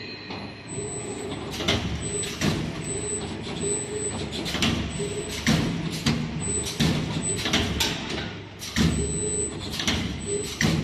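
CNC rebar stirrup bending machine running: a steady low motor hum with a whine that starts and stops in short runs, and sharp clacks about once a second as the bending head turns back and forth.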